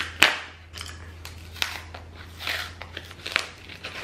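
Corrugated cardboard of a flat-pack IKEA shelving box being pried and ripped at its glued end flap: a series of short crinkling, tearing scrapes, the sharpest just after the start, as the hard-to-open flap resists.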